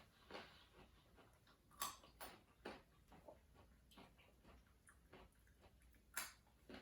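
Near silence with a few faint, scattered clicks and smacks of people eating chicken wings.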